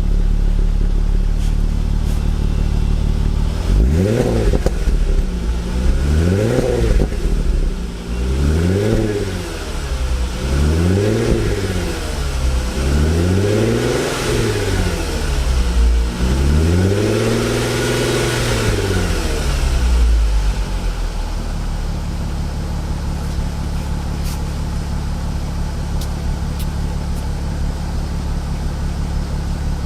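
Volkswagen Eos VR6 engine through its fully stock exhaust, idling, then blipped about six times. The revs rise and fall each time, the last one held longest, before it settles back to a steady idle.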